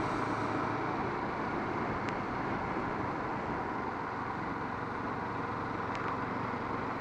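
Kawasaki Vulcan S parallel-twin engine and rushing wind, heard steadily while riding at a constant pace. The rider says the bike is running well, its pipes probably cleared by a day on the motorway.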